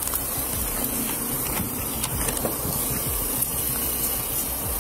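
Scuffing and rustling of clothing and skin against a police body camera's microphone during a close physical struggle, heard as a steady rough hiss with a few faint knocks.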